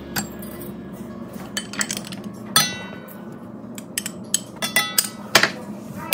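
Stand mixer kneading stiff dough with its dough hook in a stainless steel bowl, with a low steady motor hum. Over it come a series of sharp clinks as a spoon and a glass measuring cup knock against the steel bowl while water is added.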